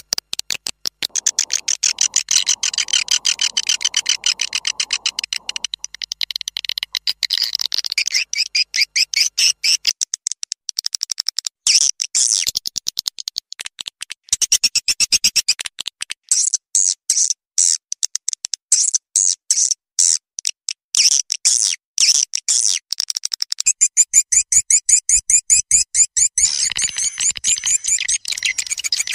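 Swiftlet lure call recording: fast trains of high-pitched twittering chirps, stopping and starting every second or so. It is the 'suara panggil' played to attract swiftlets to a nesting house.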